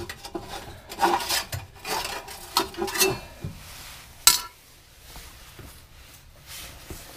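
Thin sheet-metal exhaust band clamp being handled just off the pipe: metal scraping and rattling, then one sharp clank about four seconds in as it is set down on the concrete floor.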